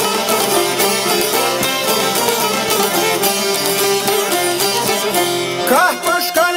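Albanian folk ensemble playing an instrumental passage: çifteli lutes plucked alongside violin and accordion. Near the end a voice comes in singing a melody with wavering, ornamented pitch.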